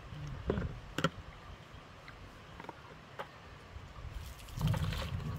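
A couple of knocks and small splashes in a plastic basin of rinse water, then the water poured out of the basin, splashing onto concrete for about a second near the end.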